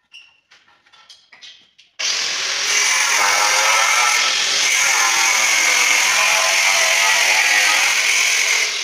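Handheld angle grinder with a diamond blade cutting a marble tile: a loud, steady whine whose pitch wavers as the blade works through the stone. It starts abruptly about two seconds in, after a few light knocks and clicks.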